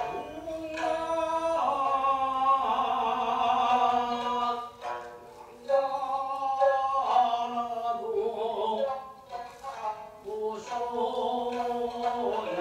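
Gidayu chanting for a Japanese puppet play: a chanter sings long, wavering, drawn-out notes in phrases with short breaks between them, with a few sharp plucked shamisen notes.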